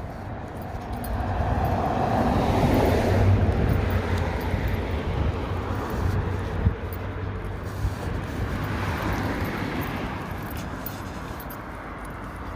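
A car passing, its tyre and engine noise swelling over the first few seconds and then fading slowly away, with wind rumbling on the microphone.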